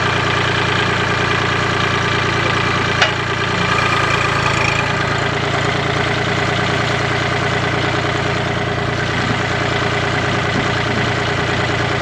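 Compact tractor engine idling steadily, with a single sharp click about three seconds in.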